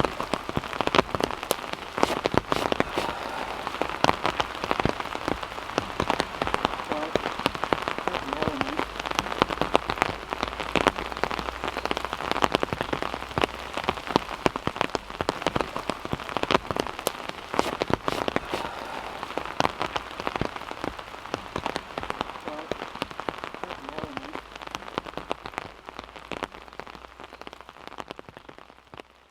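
Heavy rain in a downpour: a dense hiss full of countless individual drop impacts, steady until it fades out near the end.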